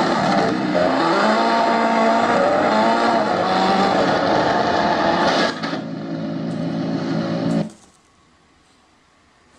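BlitzWolf BW-F3 Bluetooth speaker playing back loud audio with steady low pitches and a wavering higher tone, which cuts off abruptly about eight seconds in.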